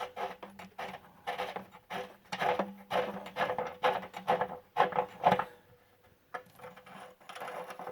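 Irregular clicks, knocks and rattles of a metal water-heater element wrench being handled and worked, thick for the first five seconds or so and then sparser.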